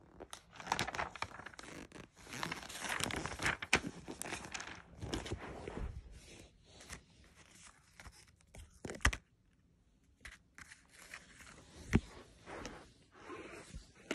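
Paper rustling and crinkling as glossy sticker-album pages are turned and stickers are shuffled by hand. It comes in irregular bursts, busy at first, then sparser, with a few sharp taps and quiet gaps.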